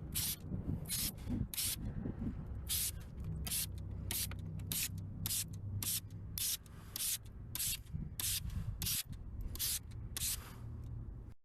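Hand trigger spray bottle of detailing product sprayed over and over in quick short squirts, about a dozen and a half hissing bursts.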